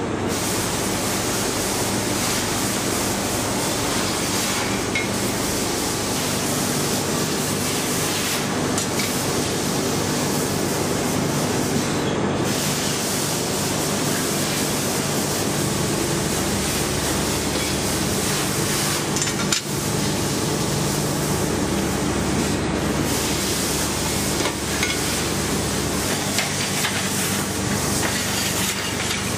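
Steady din of workshop machinery while a hydraulic press brake is worked: an even hiss with a low hum that deepens for stretches in the second half. One sharp knock about twenty seconds in.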